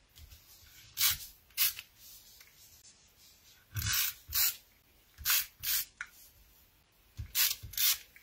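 Adhesive tape runner drawn across the back of a cardstock panel in eight short strokes, coming in pairs.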